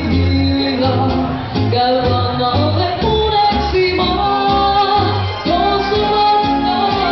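A female singer singing live over a karaoke backing track, with a regular bass line under the vocal.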